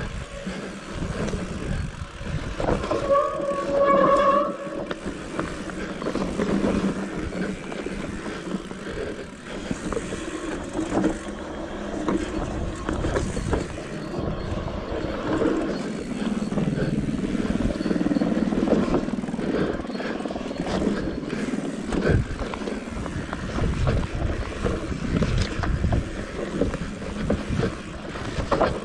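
Mountain bike ridden fast down a rough dirt forest trail: tyres on dirt and roots and the bike clattering, with many small knocks and a low rumble. A brief pitched sound stands out about three seconds in.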